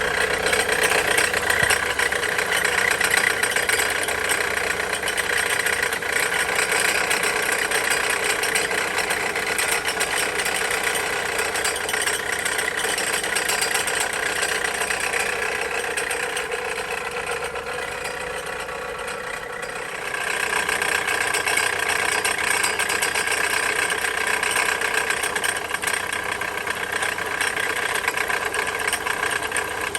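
2007 Dodge Caliber engine idling, with steady whining tones from its failing alternator, the horrible noise that marks a bad alternator. The noise eases off for a few seconds about two-thirds of the way through, then comes back.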